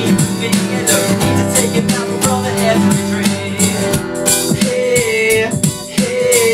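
Two steel-string acoustic guitars strummed in a steady rhythm under male singing, with a long sung note held from about two-thirds of the way in.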